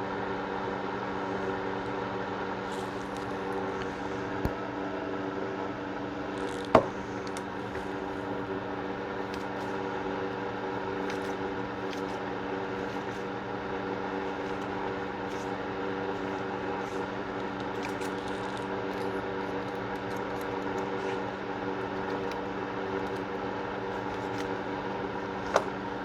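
Steady machine hum with several fixed tones, like a room fan or air conditioner. Over it come faint scratchy ticks and a few sharp clicks of handling while a .22 revolver's barrel and cylinder are cleaned; the loudest click is about seven seconds in, and another comes near the end.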